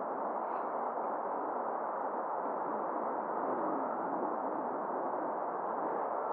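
Jet engines of an Airbus A380-861, its four Engine Alliance GP7200 turbofans, running at taxi power: a steady, even rushing noise with no change in level.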